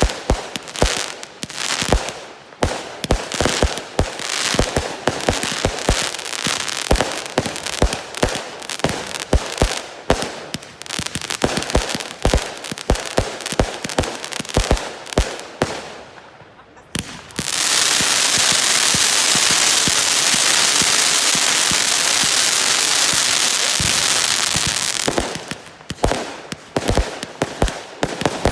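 A 200-shot firework cake firing: rapid shots and bursts, several a second. About 16 seconds in there is a brief lull, then roughly seven seconds of loud, continuous hissing, and separate shots come back near the end.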